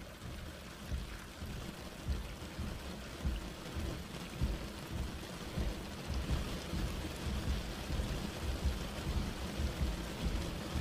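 Heavy rain pouring down in a storm, a dense steady hiss with a low, uneven rumble underneath.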